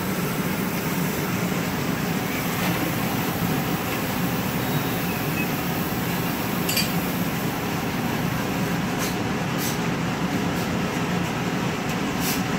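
Steady roar of gas burners in a glassblowing studio: the furnace and glory hole firing, with a working flame close by. A few brief high hisses come in the second half.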